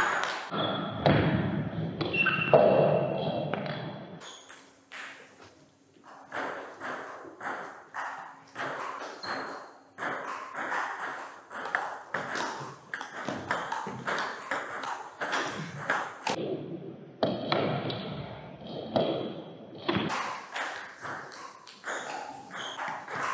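Table tennis rallies: the celluloid-plastic ball ticking off rubber-faced bats and bouncing on the table in quick, uneven succession, with short breaks between points. A louder, denser noise fills the first few seconds.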